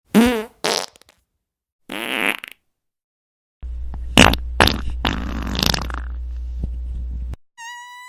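Fart sound effects from a fart app: three short farts with wobbling pitch in the first two and a half seconds, then a longer one of about four seconds over a steady low drone. Just before the end a clean, slowly rising tone begins.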